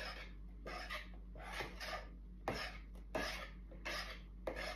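Hand whisk drawn slowly through cake batter in a mixing bowl, gently folding in beaten egg whites: a run of soft rasping strokes, about one and a half a second.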